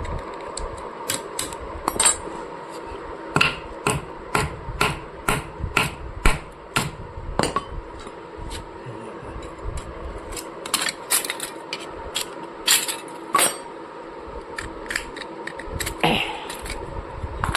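Repeated hammer strikes on the metal parts of an oil expeller being dismantled, irregular, about one or two a second, with a steady hum underneath.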